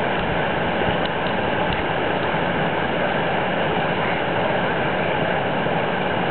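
Steady roar of river rapids: whitewater rushing over and around boulders.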